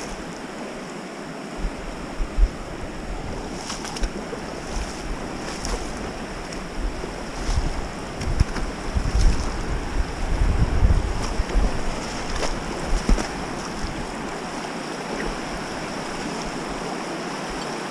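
Shallow river rushing over rocks, a steady noise of flowing water, with wind buffeting the microphone in low gusts around the middle.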